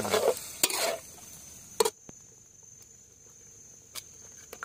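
Metal spatula scraping and clinking against a steel wok while stir-frying canned sardines in tomato sauce, with frying sizzle in the first second. A few sharp clinks, the loudest about two seconds in; after that it is much quieter, with a faint steady high tone and two light taps near the end.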